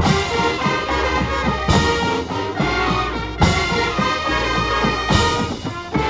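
Marching band playing a full ensemble passage: brass chords over drum strokes, with strong accented hits about every second and a half.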